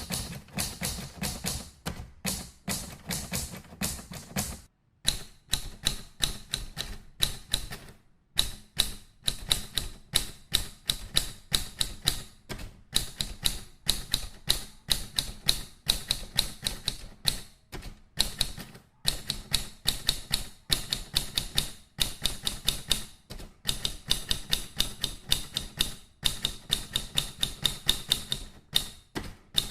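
Rapid typing: a steady run of sharp key clicks, several a second, broken by brief pauses every few seconds.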